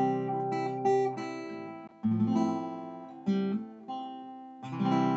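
Acoustic guitar music: strummed chords, struck about every second and left to ring down between strums.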